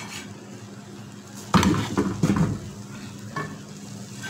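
A metal serving spoon scooping and scraping cooked khichri (rice and mung dal) against the side of a metal pot. There is a burst of scraping and clatter about a second and a half in, lasting about a second, and a shorter scrape near the end, over a steady low hum.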